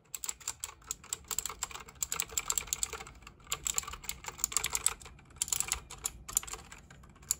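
Rampage BYGAME-K1 mechanical keyboard with clicky blue switches being typed on fast: dense runs of sharp key clicks with a couple of brief pauses.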